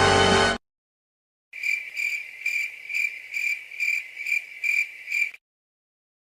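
Crickets chirping, the comedy sound effect for an awkward silence, with a steady high chirp pulsing about twice a second for about four seconds. A music clip cuts off just before it.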